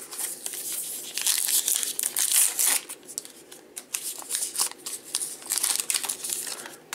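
A crimped foil trading-card pack wrapper being torn open and crinkled in the hands, with a run of sharp crackles that is loudest in the first three seconds and thins out after that.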